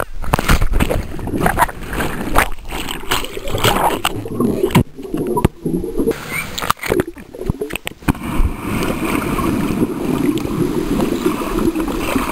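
Water heard through a camera held underwater: muffled gurgling and bubbling with irregular knocks and crackles, cutting out briefly a few times around the middle.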